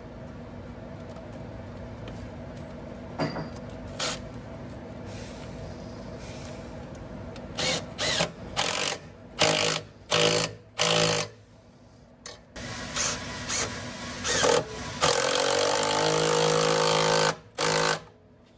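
Cordless impact driver on a socket extension tightening a turbo's V-band clamp, in several short bursts of hammering, then one longer run of about two seconds, then two more short bursts near the end. Before the first burst there is only a steady low hum.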